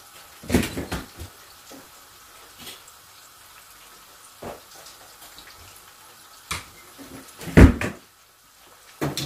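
Scattered household knocks and thumps, about six in all, the loudest a deep thump near the end. Under them runs a faint steady hiss of oil frying in a wok on a gas burner.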